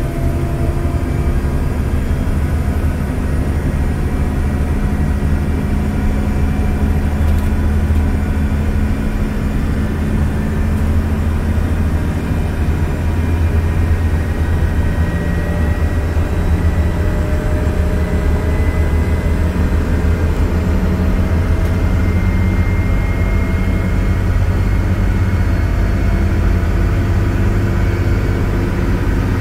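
Mercedes-Benz OC500LE CNG bus running: a steady, loud low engine rumble with faint whining tones that slowly rise and fall in pitch.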